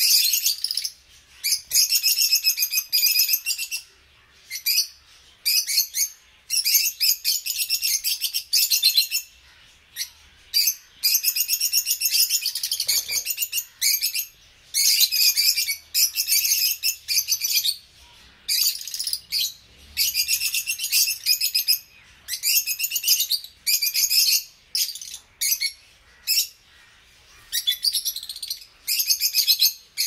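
Caged rosy-faced lovebirds chattering: rapid, shrill, high-pitched chirps in bursts of a second or two with short pauses between.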